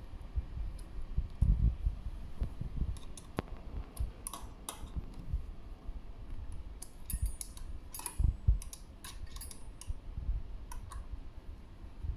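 Irregular light metallic clicks and small knocks from work on an e-bike's rear disc brake caliper and rotor while the disc is centred between the pads, some clicks coming in quick little clusters.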